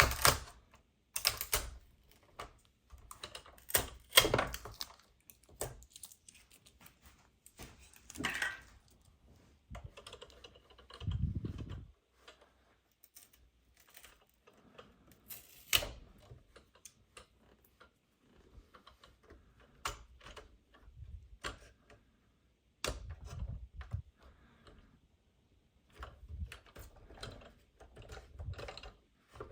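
Plastic toy vehicles and parts being handled: irregular clicks and taps, with a few soft knocks and quiet gaps between.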